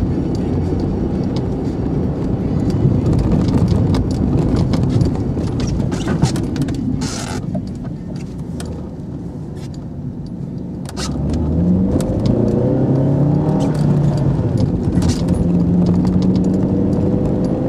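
Car engine and tyre noise heard from inside the cabin. It eases off and goes quieter for a few seconds, then about eleven seconds in the engine picks up again, its note rising as the car accelerates.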